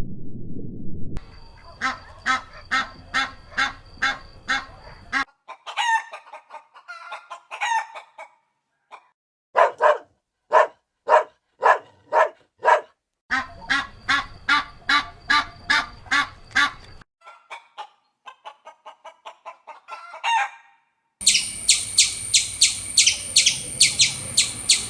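Chickens clucking across several short clips: fast runs of clucks and calls, a louder, slower run of clucks in the middle, and high-pitched rapid chirping near the end.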